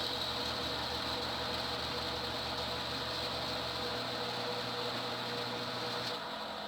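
Homemade lathe running steadily with a constant motor hum, turning a wooden pool cue. Part of its low hum drops away over the last couple of seconds.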